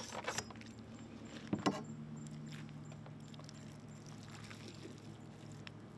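A fillet knife working a large African pompano, soft scraping with a couple of light knocks in the first two seconds, over a faint steady low hum.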